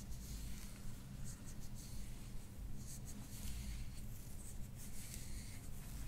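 Hair being scratched and rubbed against the scalp by fingertips during a scalp massage: irregular, soft scratchy strokes, several a second at times, over a faint steady low hum.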